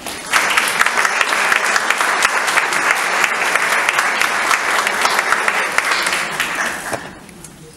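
Audience applauding: many people clapping together, starting suddenly and dying away near the end.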